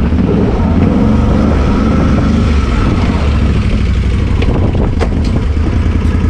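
Can-Am Renegade XXC 850 ATV's V-twin engine idling steadily, with a couple of light clicks about five seconds in.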